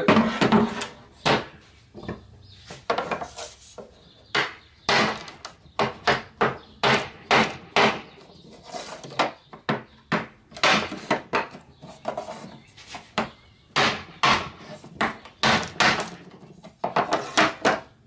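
Hammer striking a block of wood to knock a cabinet door's glued stile off its rails: a run of sharp wooden knocks, irregular, about one or two a second, with short pauses. The joint is not coming apart as easily as hoped.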